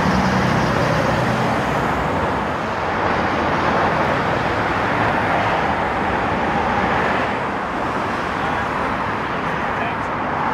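Road traffic with vintage double-deck buses and cars driving past: a steady rush of engine and tyre noise, with a bus engine's low hum strongest in the first second or so.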